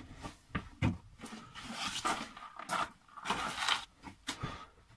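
Knocks, clicks and scraping-rustling noises of objects being handled and moved about in a small room, the sharpest knock about a second in.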